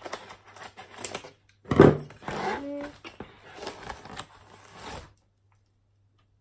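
Parcel packaging being handled and opened by hand: crinkling and rustling with many small crackles and one loud burst about two seconds in. It stops abruptly about five seconds in.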